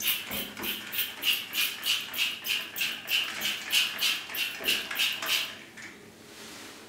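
Trigger sprayer of a bottle of anti-limescale cleaner pumped in quick succession into a toilet bowl, about three short hissing squirts a second. The squirting stops about five and a half seconds in.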